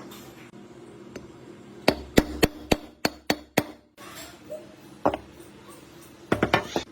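Sharp knocks in quick succession, about seven in under two seconds, then one more knock and a final quick cluster near the end: strikes on a workpiece during a rusty chainsaw's restoration.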